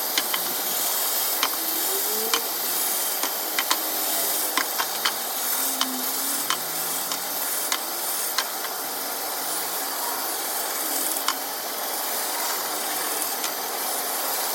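Wood-cutting machine working wood: a steady hiss with irregular sharp clicks through it.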